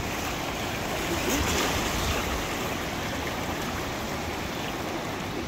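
Surf washing up a shallow sand beach: a steady, even rush of water.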